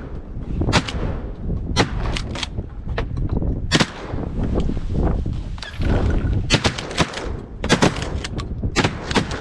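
Volley of shotgun blasts from several hunters firing at ducks: many sharp shots, irregularly spaced, some in quick pairs and triples, with pump shotguns being cycled between shots.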